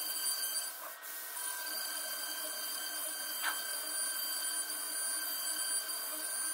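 CNC router spindle whining at a steady high pitch while a 6 mm end mill cuts a pocket in Merbau hardwood, with a brief dip about a second in and a short click midway.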